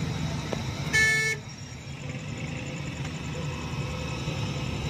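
A vehicle horn gives one short honk about a second in, over the steady low rumble of engines and road traffic heard from a car driving in city traffic.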